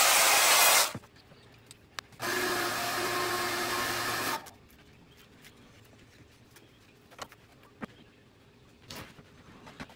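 A handheld router running on plywood stops about a second in. About a second later a steady motor hum runs for two seconds and cuts off. The rest is quiet apart from a few light knocks of wood being handled.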